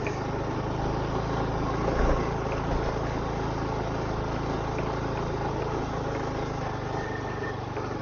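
Motorcycle engine running steadily at cruising speed, a low even hum over a constant hiss of road noise.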